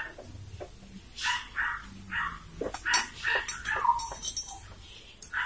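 A pet dog barking in a quick string of short, high barks, about seven in all.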